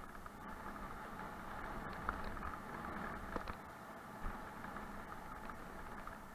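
Mountain bike descending a rocky dirt trail: a steady, muffled rumble of the tyres over gravel and dirt, with scattered sharp knocks and rattles as the bike hits stones.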